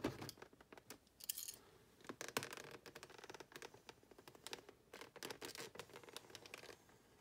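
A knife blade cutting and scraping along the edge of a plastic blister pack, heard as scattered quiet scratches and small clicks with a short scrape about a second in.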